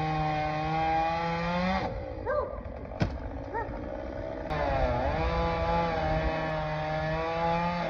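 Chainsaw engine running at steady high revs, cutting out about two seconds in. It starts up again a couple of seconds later, bogs briefly, then runs steadily until it dies away with falling revs near the end: the saw stalling, a sign of it running out of fuel.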